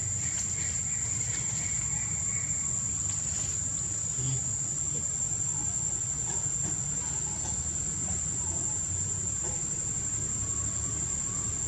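Steady high-pitched drone of an insect chorus, over a low rumble.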